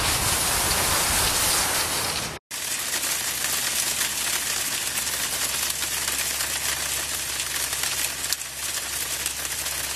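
Wind buffeting the microphone, broken off by a cut about two and a half seconds in; then steady rain pattering with a fine, even crackle.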